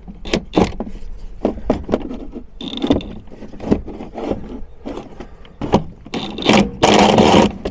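Hand tools clinking and knocking irregularly against the car's rear suspension and plastic wheel-arch liner, with a loud scraping rustle near the end.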